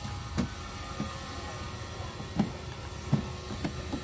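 A handful of short, light clicks and knocks, about five in four seconds, from hands handling the wire-mesh lid of a plastic tub, over a steady faint background hum.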